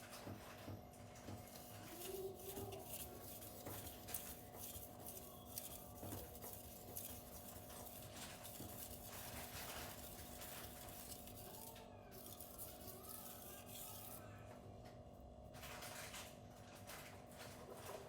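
Steel knife blade stroked back and forth on a 1000-grit silicon carbide whetstone, a long run of muted scraping strokes.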